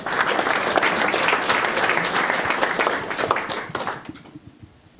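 Audience applauding, dying away about four seconds in.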